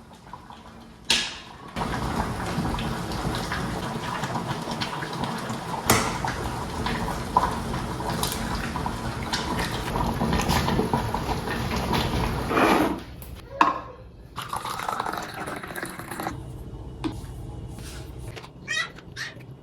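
Steady rush of running water, as from a tap, that stops about thirteen seconds in; a few light clicks and knocks follow.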